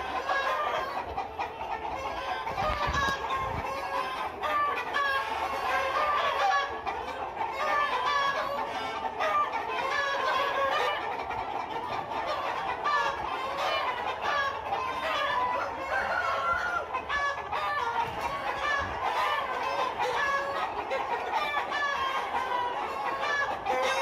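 A mixed flock of chickens, aseel cocks among them, clucking and calling over one another in a dense, steady chatter of short calls.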